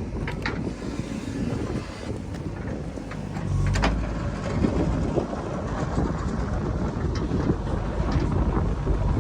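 Heavy diesel machinery running with a steady low rumble, a few sharp knocks, and wind buffeting the microphone.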